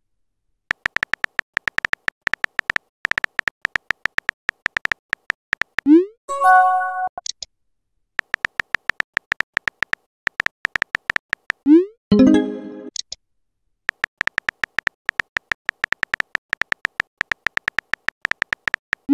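Rapid keypress clicks from a texting app's on-screen keyboard, each a short beep-like tick, as messages are typed out. Twice, about six seconds in and again about twelve seconds in, the typing stops for a rising pop and a brief chime as a message bubble is sent.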